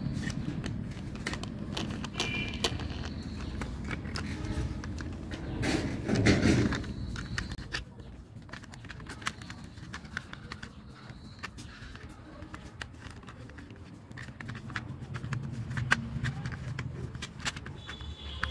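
Plastic toy car parts being handled: scattered small clicks and taps as a wheel is pushed onto its axle and the car body is pressed onto the chassis, with a louder handling bump about six seconds in.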